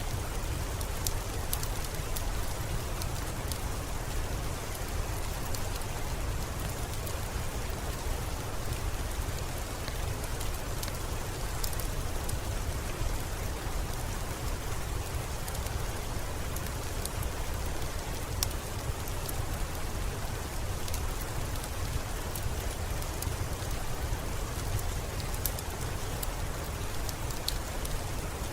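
Steady rain with a low rumble under it, and scattered sharp crackles and pops of a wood fire coming through every second or so.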